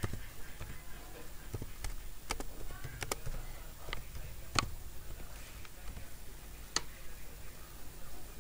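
Scattered sharp clicks from a computer being operated, about eight of them at irregular gaps a second or so apart, over a faint steady room hum.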